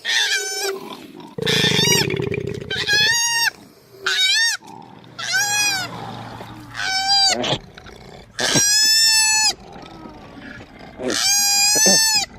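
Koala calling: a run of about eight high-pitched wavering cries, each rising then falling, the last two held longer. A low rasping grunt sounds under the cries from about one and a half to three and a half seconds in.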